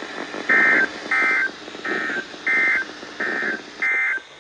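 Six short bursts of EAS SAME digital data tones, the buzzy two-tone squawk about two-thirds of a second apart. Coming right after the warning text, they are the end-of-message code closing the tornado warning.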